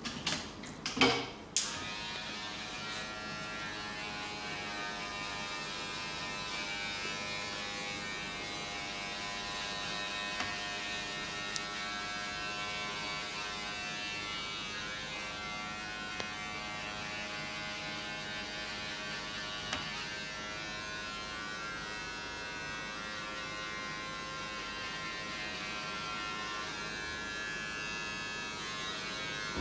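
A few sharp taps in the first two seconds, then a small electric vibrating massager strapped to the barber's wrist buzzing steadily.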